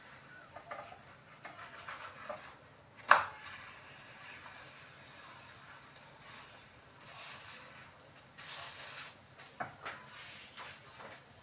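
Wooden spatula scraping and spreading oil across a paratha in a non-stick frying pan, in short strokes, with one sharp knock about three seconds in and a few light clicks near the end.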